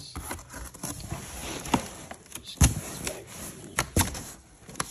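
Packaging being handled: a cardboard box with a plastic-wrapped headlight and styrofoam inside. A light rustle is broken by several sharp knocks and taps, the loudest about two and a half seconds in and another about four seconds in.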